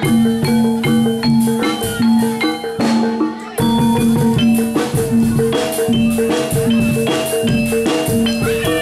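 Music for a barongan street show, with struck metal keys ringing out repeated notes over drums in a steady rhythm.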